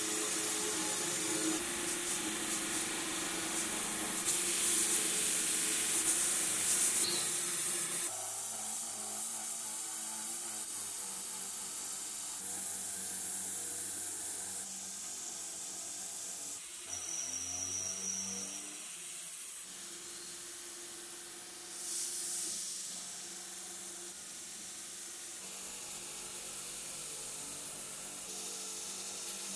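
Milling machine end mill cutting aluminum plate under a coolant-mist spray: a steady hiss from the mist nozzle over the spindle's hum and the cutting noise. The sound shifts abruptly several times as one cut gives way to another.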